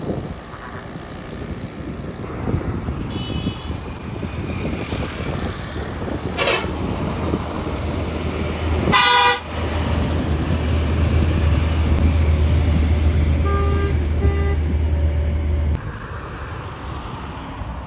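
Bus air horns sounding in road traffic: a short high toot about three seconds in, a loud blast at about nine seconds, and two short toots near fourteen seconds, over steady traffic noise and a low engine hum.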